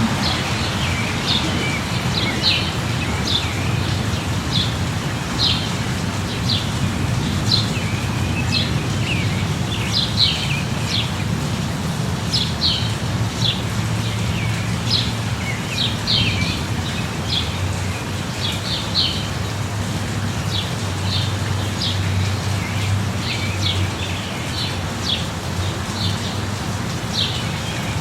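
Steady light rain, with small birds chirping over it in many short calls throughout, and a low steady hum underneath.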